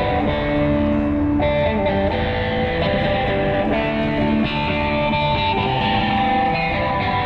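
Street musician's guitar playing music, with held notes and chords ringing over one another.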